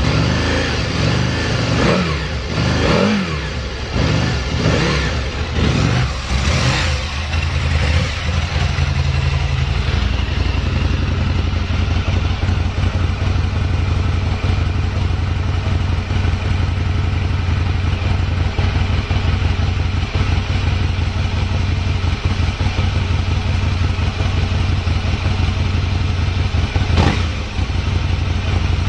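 Aprilia Tuono 1000R's 998 cc V-twin engine revved several times, then settling into a steady idle, with one short blip of the throttle near the end. The idle is even, with no abnormal noises, as the seller describes it.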